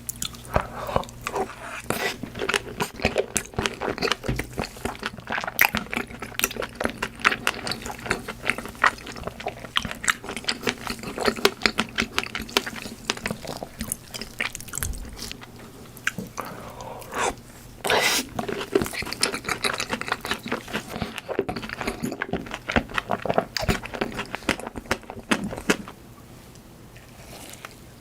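Close-miked chewing and mouth sounds of a person eating, with dense wet clicks and smacks that thin out near the end.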